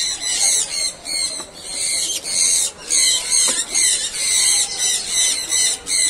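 A flock of small aviary birds chattering together at a feeding tray: a constant mass of high chirps that swells and dips about twice a second.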